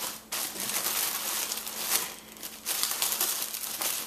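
Thin plastic packing sleeve rustling and crinkling as it is pulled open around a new laptop, in two bouts with a short lull around the middle.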